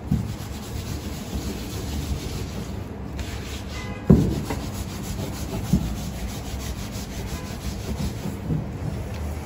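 Wooden rolling pin rolling out thin dumpling wrappers on a floured wooden board: a steady rubbing rumble, with a few knocks, the loudest about four seconds in.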